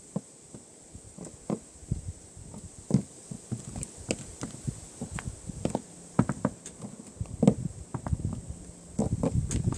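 Plastic toy animal figures tapped and shuffled along a surface as they are made to walk: a run of irregular light knocks and clicks, busier near the end.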